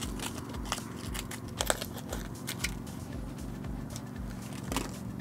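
Clear plastic hook packet crinkling and clicking as it is handled, with scattered small clicks and two louder snaps, one about a second and a half in and one near the end.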